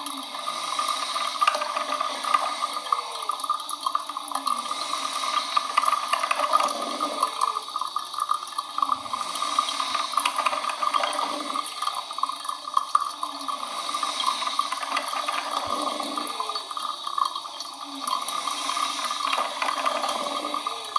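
A running coffee machine: a steady liquid hiss, with short low sounds falling in pitch every second or two.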